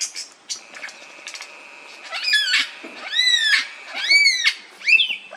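Lyrebird calling: three loud arched calls about a second apart, each rising and then falling in pitch, over a steady high tone, with quicker shorter sweeps near the start and end.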